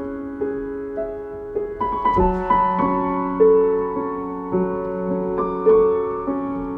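Background music: slow, gentle solo piano, with notes struck about once or twice a second and left to ring.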